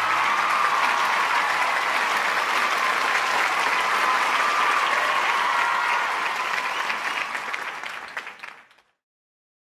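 Crowd applauding, with a few faint cheers among the clapping, fading away to silence near the end.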